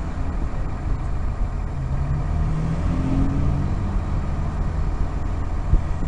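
A 2002 Blue Bird CS transit bus's Cummins ISC inline-six diesel engine idling steadily while the bus stands still.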